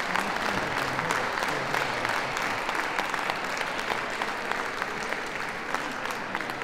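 Audience applauding, with dense clapping that begins to die down near the end.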